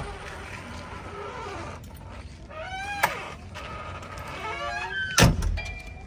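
Cab door of a JCB 3DX backhoe loader: the door hinges squeak twice as the door swings, then the door shuts with a loud thud about five seconds in.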